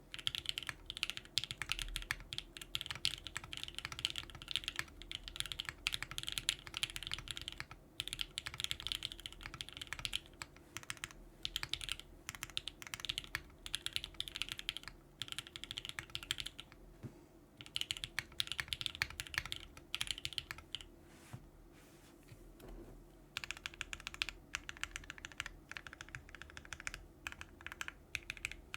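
Fast typing on a custom mechanical keyboard with lubed and filmed JWK Moss linear switches, FR4 plate, GMK keycaps and no case or plate foam: a dense stream of key clacks in runs, broken by a few short pauses.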